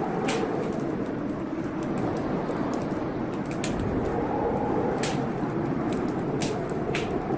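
Wood fire crackling, with irregular sharp pops, over a steady rushing of storm rain.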